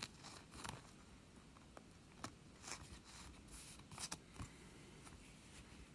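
Faint rustling and scattered soft clicks of trading cards and a thin clear plastic card sleeve being handled between the fingers.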